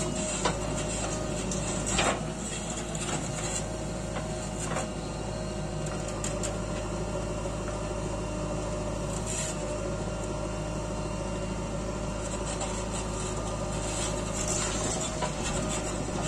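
JCB 3DX Eco backhoe loader's diesel engine running steadily under load as the backhoe digs soil and dumps it into a tipper truck. A few short knocks and clanks from the bucket and the falling soil come through, the clearest at about half a second and two seconds in.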